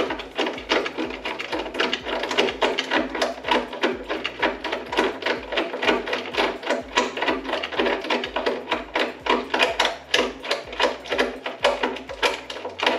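Ratchet wrench clicking in quick, uneven runs as it is worked back and forth, tightening 10 mm nuts on M6 studs.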